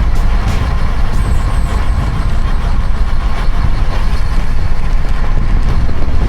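Wind rushing over the camera microphone on a fast road-bike descent: a loud, steady low rumble.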